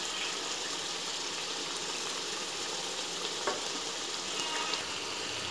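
Rohu fish pieces frying in oil and masala in a kadhai, a steady sizzle, with a couple of light taps partway through.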